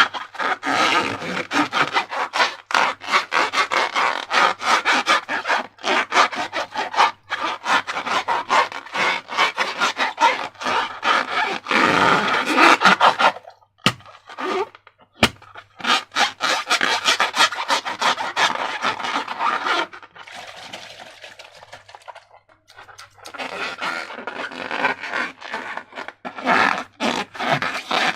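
Sticky slime being worked by hand, with dense, rapid crackling and popping. It pauses briefly around the middle with two sharp clicks, and goes quieter for a few seconds later on.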